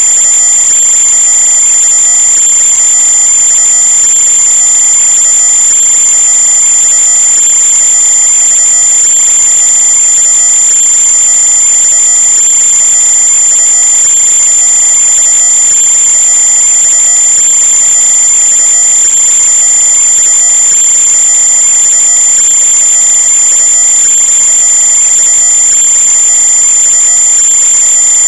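Loud, steady high-pitched electronic whine over a hiss, unchanging in pitch and level.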